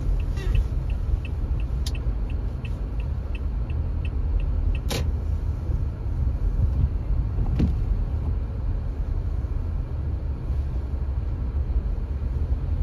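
Low, steady rumble of a car's engine and tyres on a wet, snowy road, heard from inside the cabin. A turn signal ticks about three times a second for the first few seconds and stops, then there is a knock about five seconds in and a fainter one a couple of seconds later.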